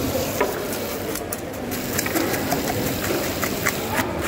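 Knife cutting into a large fish on a wooden chopping block: scattered short taps and clicks over a steady machine-like hum.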